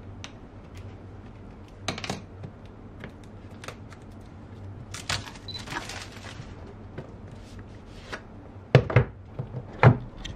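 Plastic shrink-wrap on a cardboard phone box being cut with a knife and peeled off, with scattered crackles and a crinkly stretch about halfway. Near the end there are a few sharp thumps as the box is handled on the table and its outer sleeve is slid off.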